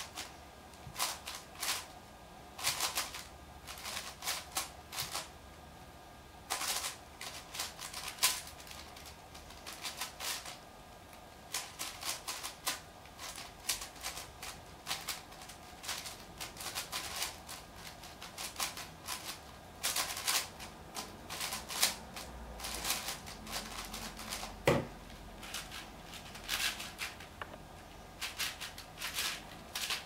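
Plastic speedcube layers turning fast by hand: rapid clacking in bursts separated by short pauses while a big cube is being speedsolved. About 25 seconds in comes a single dull thump.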